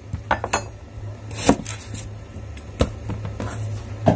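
Kitchen knife cutting a long, slender eggplant in half: a few separate sharp knocks of the blade through the flesh and onto the board, the loudest about a second and a half in, over a steady low hum.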